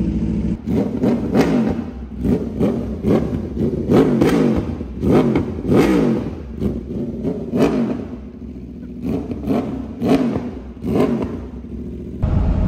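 Aprilia RSV4's V4 engine on an SC Project carbon exhaust, revved in a long run of quick throttle blips, each rising and falling, with idle between. The bike has just been put back together after a long repair and is being run up.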